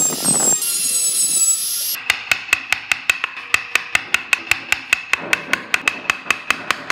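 A handheld electric rotary tool whines at high speed as its burr grinds into the wooden body. It cuts off about two seconds in, and a wood chisel is then tapped in quick, even strokes, about five a second, carving grooves into the wood.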